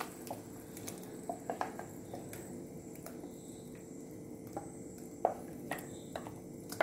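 Wooden spatula scraping and knocking against a steel mixer jar as beetroot is scraped out into an aluminium pan of simmering pickle masala: irregular light clicks and scrapes, the sharpest about five seconds in, over a faint steady sizzle.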